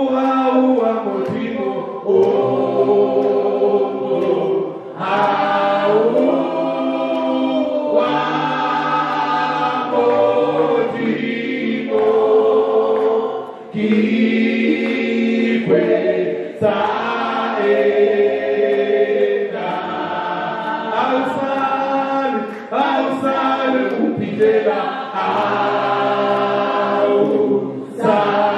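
Choir singing a gospel song, several voices in harmony, in phrases a second or two long with brief breaths between them.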